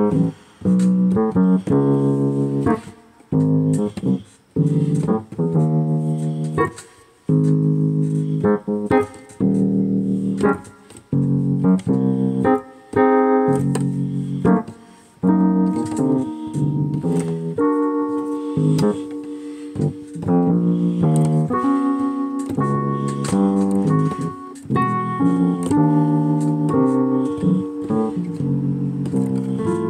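Instrumental background music: a quick run of short notes and chords, with brief pauses now and then.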